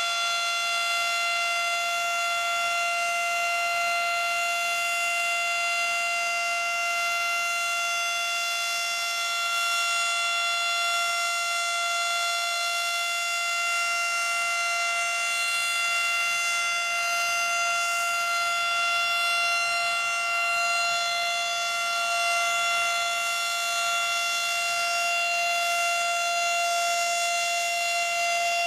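Federal Model 5 single-tone outdoor warning siren sounding a steady tone, held at one pitch throughout, its loudness swelling and easing slightly.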